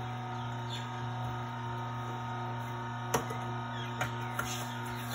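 Horizontal masticating juicer motor running with a steady low hum. About three and four seconds in come a few short sharp cracks as apple pieces are pushed down the feed chute with the plunger and crushed by the auger.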